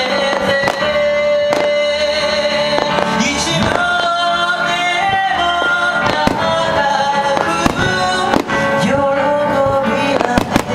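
A song with singing plays, and firework bursts bang over it again and again at irregular intervals.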